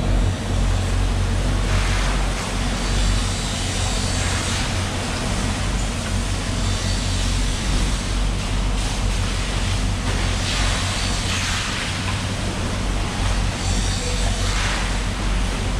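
Plastic bags rustling in several short bursts as fish are packed into them, over a steady low hum of running machinery.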